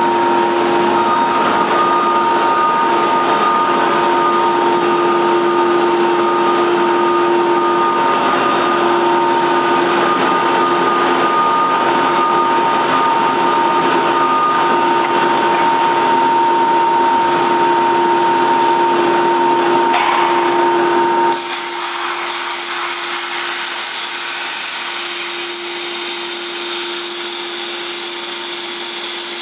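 Toyoda CNC lathe running with a steady whine made of several held tones over machine noise. About two-thirds of the way through the sound drops noticeably quieter and the higher tones stop, leaving a lower hum.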